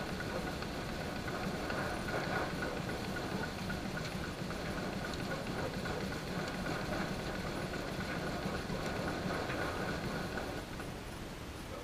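Wooden fiddlehead-cleaning machine running, its fan blowing air through the fiddleheads: a steady motor hum with a higher whine over it, which falls away near the end.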